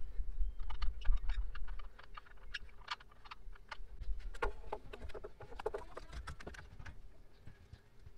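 Irregular small clicks and taps of hand tools and metal parts being handled in a car's engine bay, busiest in the middle, over a low rumble during the first couple of seconds.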